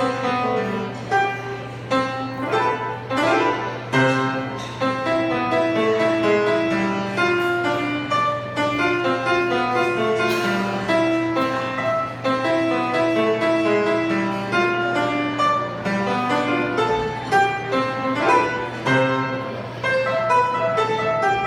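Piano playing a lively piece of quick, detached notes, with a steady low hum underneath.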